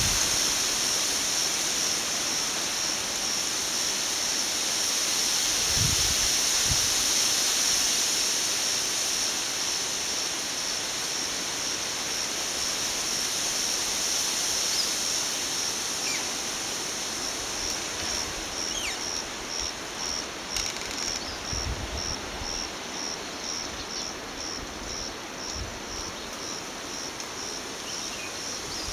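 Shallow river water running over a riffle, a steady rushing. Over it an insect trills high and continuously, and past the middle the trill breaks into regular chirps, about two a second.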